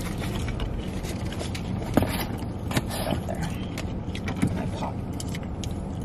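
Light clicks and scrapes of chopsticks picking food out of a styrofoam takeout box, over a steady low rumble inside a car.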